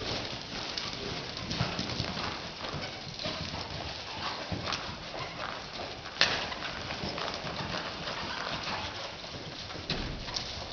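Hooves of a running horse and steer thudding irregularly on the soft sand footing of an indoor arena, with one sharper knock about six seconds in.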